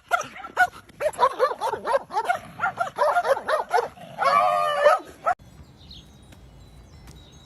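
A dog vocalizing: a run of short, high yips and whines rising and falling in quick succession, then one longer drawn-out howl about four seconds in and a final yip, after which it stops.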